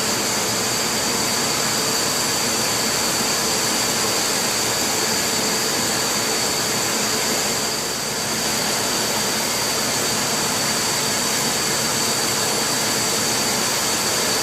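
Steady rushing noise of running machinery or ventilation, with a faint high steady whine, unchanged throughout with a slight dip about eight seconds in.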